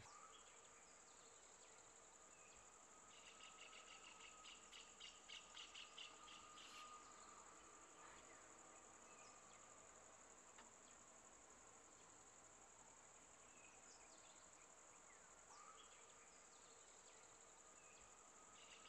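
Faint insect chorus: a steady high-pitched drone, joined about three seconds in by a rapid pulsing chirp at about four pulses a second that lasts a few seconds and returns near the end.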